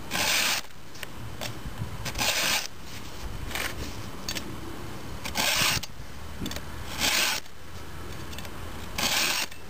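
A round chainsaw file in a filing guide rasping across the cutting teeth of a chainsaw chain during sharpening. There are five short, light strokes, about one every one and a half to two seconds.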